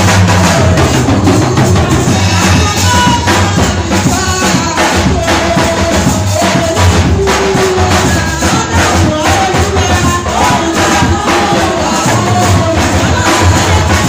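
Loud church praise music: voices singing a melody over percussion with a steady beat.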